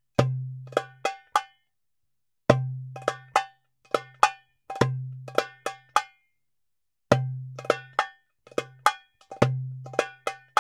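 Percussive background music loop: a low bass note starts each phrase, followed by a few short sharp hits. The phrase repeats about every two and a third seconds, with dead silence between phrases.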